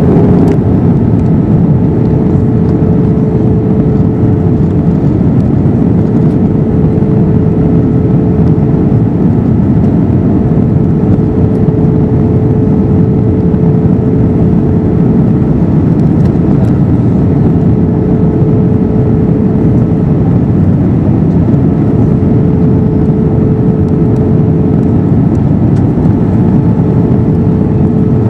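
Steady cabin noise inside an Airbus A321 with its CFM56 engines running: an even rushing drone with a constant hum in it.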